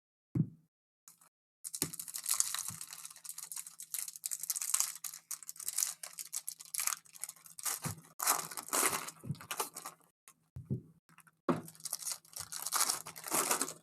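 Foil wrapper of a Donruss basketball card pack being torn open, then crinkled while the cards are handled. The crackling runs in two spells with a short pause in between.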